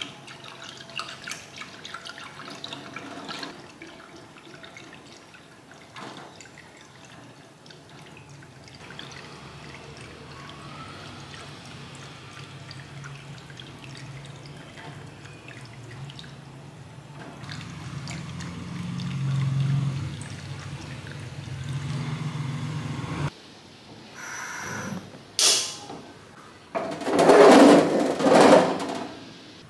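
A wire whisk stirring a liquid mixture in a saucepan, with liquid sloshing and light ticks of the whisk against the pan. Near the end come several louder sudden knocks and handling sounds as the gas stove is turned off.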